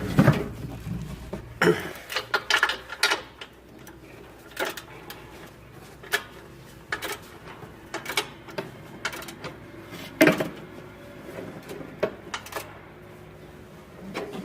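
3/8-inch ratchet wrench clicking in short irregular runs, with scattered metallic clinks, as a suspension link nut is tightened.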